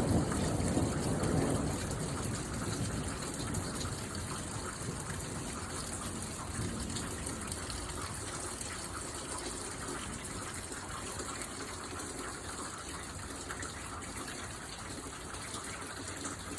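Steady rain and running storm water during a thunderstorm, an even rushing hiss. A low rumble fades away over the first two seconds.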